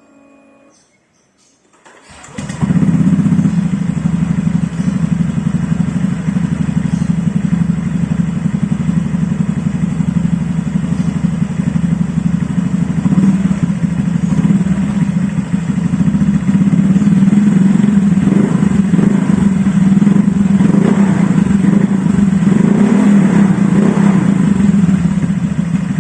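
Honda Vario 150 scooter's single-cylinder engine, breathing through an ABF Racing standard-racing exhaust, started about two seconds in and running steadily, with light throttle blips in the second half. With the number plate removed there is no slapping noise from wind hitting the plate.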